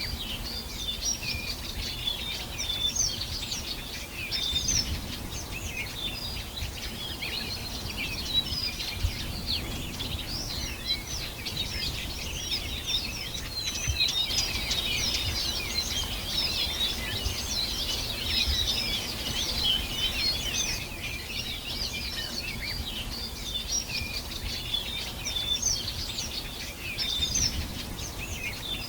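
Many songbirds singing and chirping at once, a dense, continuous chorus of short high chirps and trills, over a low steady background rumble.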